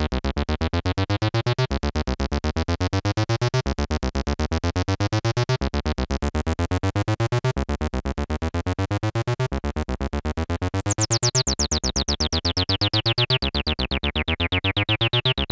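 Behringer TD-3 analog bass-line synthesizer playing a fast sequenced bass pattern of short, evenly repeated notes. The tone turns much brighter about six seconds in, then grows duller again from about eleven seconds on as the knobs are turned.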